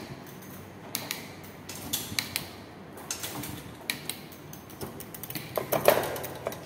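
Bicycle trigger shifter and rear derailleur shifting a 7-speed chain up toward the smallest cog while the pedal is turned by hand: sharp clicks about a second apart, with a louder clatter of chain on the cassette near the end.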